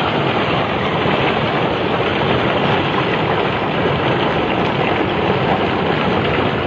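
Steady, loud rushing noise of a flash-flood debris flow, a torrent of mud carrying rocks down the slope.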